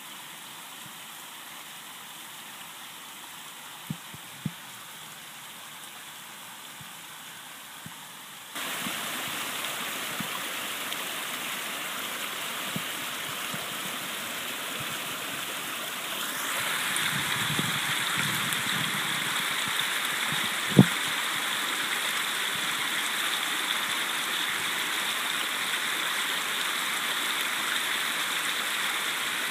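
Steady rush of water trickling over and through a beaver dam, growing louder about eight seconds in and again about sixteen seconds in. A few sharp knocks stand out, the loudest about twenty seconds in.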